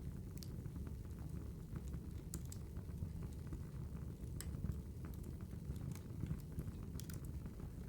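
Wood fire burning, with a steady low rumble and irregular sharp crackles and pops.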